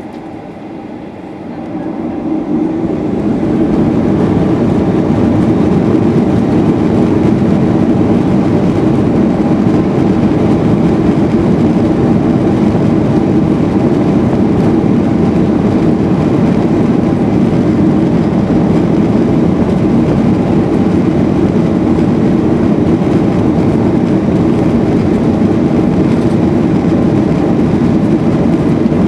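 Boeing 737-800's CFM56-7B jet engines spooling up to takeoff thrust over about two seconds, a second or so in, then running steadily at full power with the rumble of the takeoff roll, heard from inside the passenger cabin.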